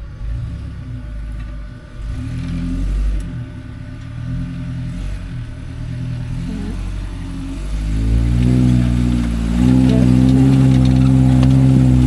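1985 Toyota rock crawler's engine working under load as the truck climbs a rocky obstacle, revving up about eight seconds in and holding the higher revs as it gets hung up on a rock.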